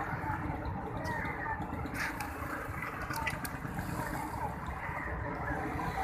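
Large flock of rock pigeons cooing together in a steady, dense murmur.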